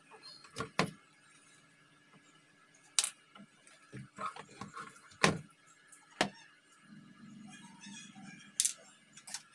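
Scattered sharp clicks and knocks, about seven in nine seconds, from a soldering iron and small parts being handled and set down on a workbench around a motherboard.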